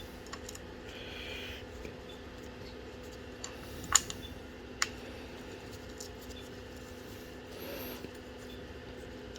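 Quiet handling sounds while the brake caliper mounting bolts are turned in by hand: a couple of small sharp clicks and light scrapes over a faint steady hum.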